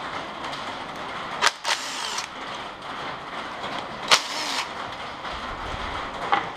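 Cordless ratchet run in two short bursts, about a second and a half and four seconds in, turning out bolts that hold the engine's coolant crossover pipe.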